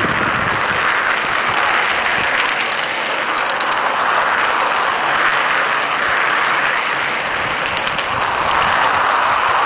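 Garden-scale model train running on outdoor track, heard from on board: a steady rushing noise of wheels and drive that swells and eases slightly, with a few faint clicks.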